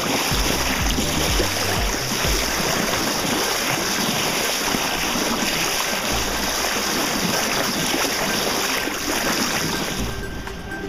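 Water rushing and splashing along a moving sailboat's hull close to the microphone: the bow wave and spray making a steady, loud wash that drops away near the end.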